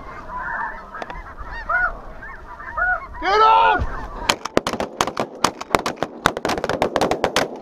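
A flock of snow geese calling overhead: many short, arching honks, with one louder call about three seconds in. From about four seconds in, a dense crackle of sharp clicks and rustling takes over.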